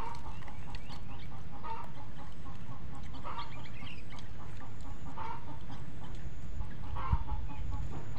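Chickens clucking, short bursts of clucks about every two seconds, over a steady low rumble.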